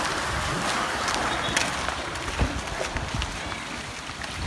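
Footsteps on a wet road, a few separate steps over a steady rushing background hiss.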